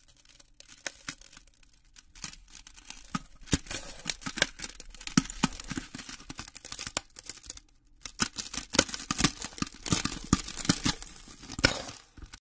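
Glass-shattering sound effect: a dense crackle of sharp clicks and tinkles in two stretches, with a short break about eight seconds in, cutting off suddenly.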